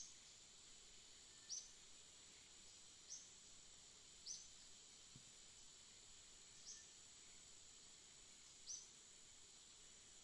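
A small bird giving faint, short, high chirps that drop in pitch, six in all, one every second or two, over a steady high hiss.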